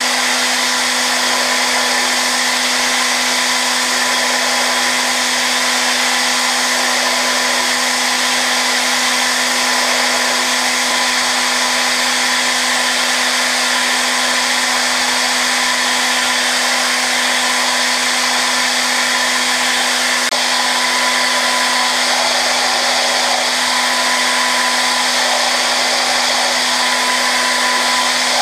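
Okuma GENOS M560-V vertical machining center's 15,000 rpm spindle running with a steady whine under an even hiss as an end mill takes a zero-stock surface-finishing pass over hardened S7 tool steel (56 Rc).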